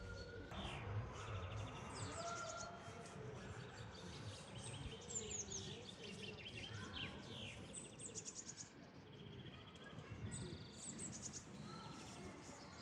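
Small birds chirping and trilling again and again over steady outdoor background noise.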